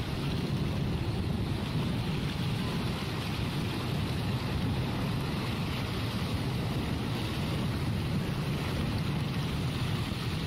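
Steady rushing noise of sea surf, with wind buffeting the microphone.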